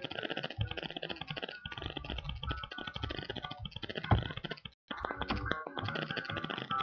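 Dense, rapid clicking with a few faint held tones underneath, cutting out briefly near the five-second mark.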